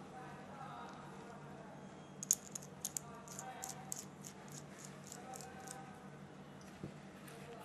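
A quick run of small, sharp clicks, about four or five a second for roughly three and a half seconds, from fingers twisting small metal parts at the threaded connector of an e-cigarette battery.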